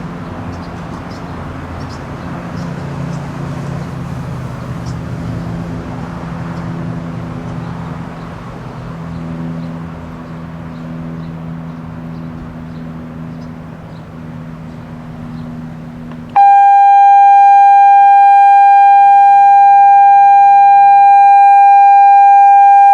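Genasys LRAD DS-60XL loudspeaker siren array sounding its alert tone: a very loud, steady single-pitched electronic tone that starts suddenly about two-thirds of the way in and holds for about seven seconds. Before it comes a low, steady drone of vehicles.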